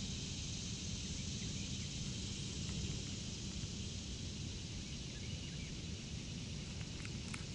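Steady outdoor lakeside ambience: an even background hiss over a low rumble, with a few faint bird chirps near the end.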